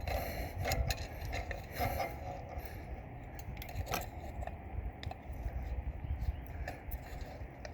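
Scattered light metallic clinks and scrapes as loosened front wheel hub parts are worked and handled, with the spindle nut just removed.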